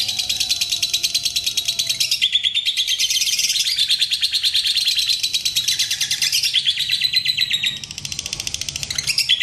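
Lovebird ngekek: a long, unbroken stream of very fast, high-pitched chattering notes. It softens briefly near the end, then picks up again.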